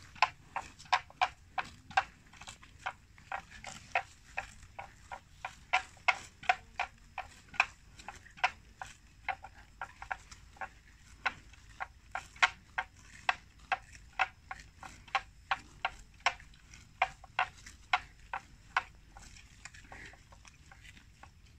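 Water buffalo chewing wet water plants: a steady run of sharp, crunching clicks, about two to three a second, that stops a couple of seconds before the end.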